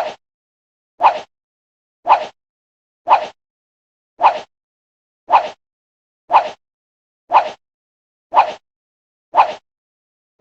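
Countdown timer tick sound effect, one short sharp tick each second with a brief decaying tail, ten ticks in all, with silence between.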